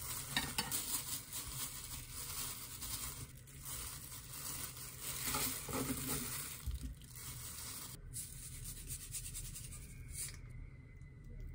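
Kitchen knife cutting through boiled pork on a wooden cutting board, with a few taps of the blade on the board near the start, and a plastic glove rustling as the slices are moved to a plate.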